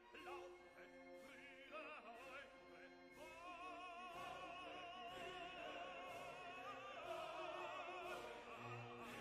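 Faint classical-style background music, with an operatic voice singing with heavy vibrato from about three seconds in.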